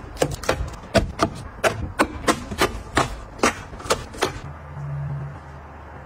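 Drink cartons and plastic bottles set down one after another on plastic refrigerator door shelves: a quick run of sharp clicks and taps, about two or three a second. The taps stop about four and a half seconds in, and a low steady hum follows.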